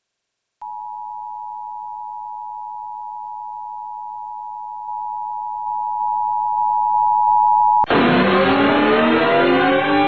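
Emergency Alert System attention signal: a steady two-tone beep that starts about half a second in, grows louder in steps, and cuts off near the end. An electronic chord of many tones then enters, sliding down in pitch and settling into a held chord.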